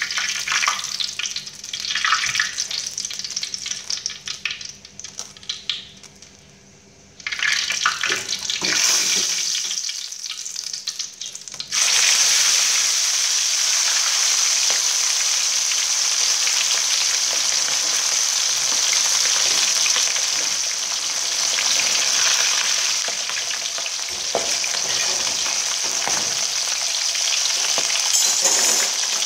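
Fish frying in hot oil in a pan: uneven sizzling at first with a short lull, then about twelve seconds in a loud, steady sizzle starts suddenly as another piece of fish goes into the oil.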